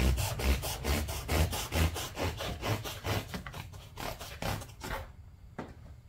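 Upholstery foam being hand-sawn with a long thin blade: quick back-and-forth rasping strokes, about four a second, stopping about five seconds in, followed by a single light tap.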